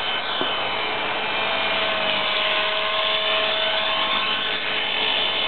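Align T-Rex 450 SE electric RC helicopter in flight: a steady high whine from its motor, gears and rotor, its pitch shifting slightly as it moves.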